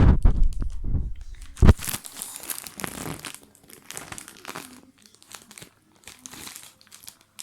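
Crinkling and rustling, as of something being handled or crumpled, in scattered bursts. A low rumble runs through the first couple of seconds and ends in a sharp knock.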